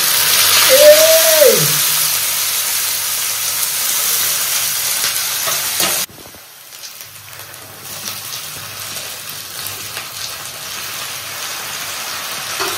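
Sliced onions sizzling in hot oil in a metal kadai as they are tipped in and stirred. The sizzle drops sharply about six seconds in, then slowly builds again.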